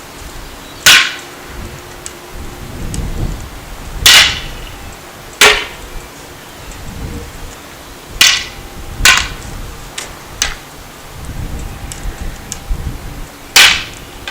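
A combat walking cane striking a target again and again: about six sharp, loud hits at uneven spacing, with a smaller knock in between.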